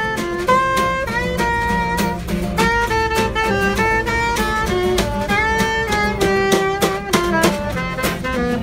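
Small acoustic band playing an upbeat jazz-swing tune: strummed acoustic guitar and a snare drum keeping a steady beat under a gliding melodic lead line.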